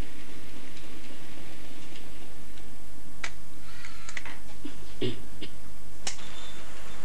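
A handful of sharp, irregular clicks over a steady low hum and hiss, bunched between about three and six seconds in.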